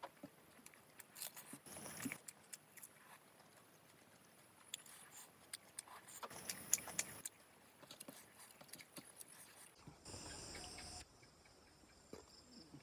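Faint close-miked eating sounds: biting and chewing chicken in curry, with scattered wet mouth clicks and smacks.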